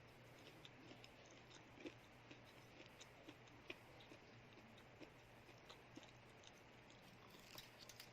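Faint, close-miked chewing of a cheese stick: soft, irregular little clicks and crackles, one to three a second, over a low steady hum.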